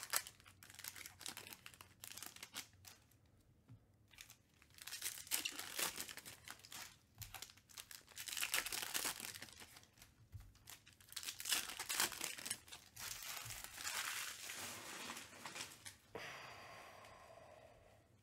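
Foil trading card pack wrappers crinkling and tearing as packs are ripped open, with the cards inside rustling as they are handled, in irregular bursts with short pauses.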